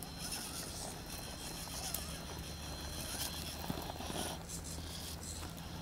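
HSP Pangolin electric RC rock crawler working over rocks: the whir of its motor and gears, with its tyres scraping and scrabbling on stone and dirt, and a few small clicks.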